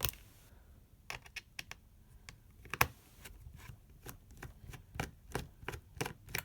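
Irregular light clicks and taps of small tools and parts against a MacBook Air's case as it is being opened, one sharper click a little under three seconds in.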